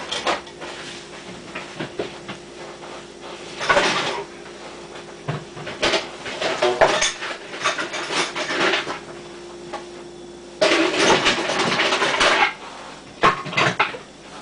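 Kitchen utensils and dishes clattering and knocking as a hand mixer is taken out and handled, with a longer scraping, rustling stretch about eleven seconds in. A faint steady hum underneath stops about ten seconds in.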